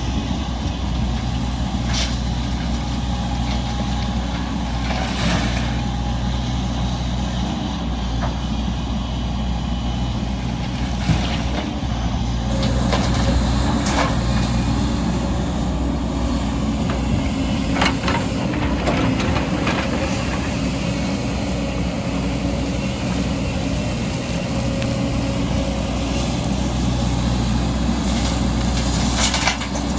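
Diesel engines of heavy earthmoving machinery running steadily, with a few sharp knocks at irregular times.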